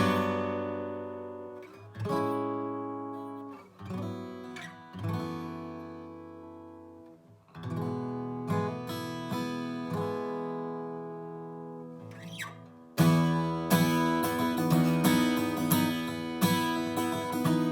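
Martin OM-28 steel-string acoustic guitar: single strummed chords left to ring and fade, a few picked notes, then steady rhythmic strumming in the last few seconds.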